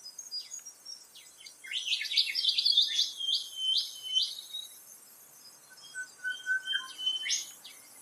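Recorded Australian dawn chorus: several birds singing and calling together, with a flurry of quick high chirps and whistles in the middle, a short run of lower piping notes after it, and one more call near the end, over a faint steady high insect-like hiss.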